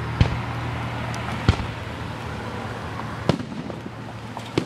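Aerial firework shells bursting: four sharp booms, spaced a second or two apart, each with a short echoing tail, over a low steady hum that fades about three seconds in.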